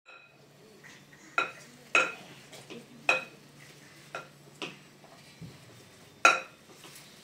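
A metal spoon stirring a thick mixture in a glass bowl, clinking against the glass with a short ring about six times, roughly once a second, the last clink the loudest near the end. A faint low hum runs underneath.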